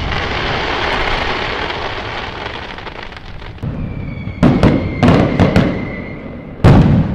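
Fireworks going off: a long crackling hiss from a burst fades away, then a string of sharp bangs starts about halfway through, with a thin whistle falling slightly in pitch under them, and one loud bang near the end.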